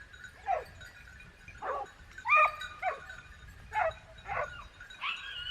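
A dog giving a string of about seven short, high yips and whines, some sliding in pitch, spaced about half a second to a second apart.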